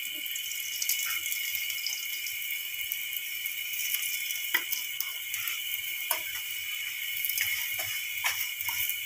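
A paratha frying in ghee on an iron tawa: a steady sizzle, with a few light clicks. A steady high-pitched drone runs under it.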